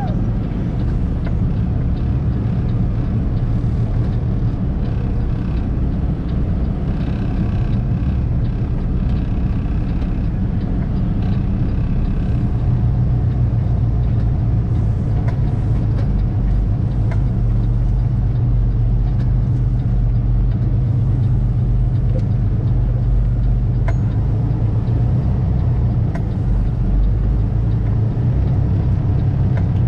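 Diesel engine of a flatbed semi truck running in a steady low drone as the truck drives slowly through the mud.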